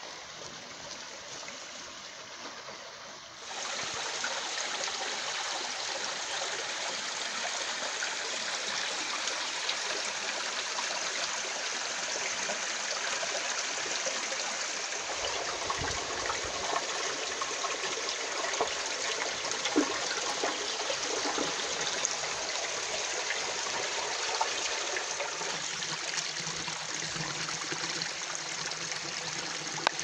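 Shallow mountain stream running over rocks, a steady rush of water that gets louder about three and a half seconds in.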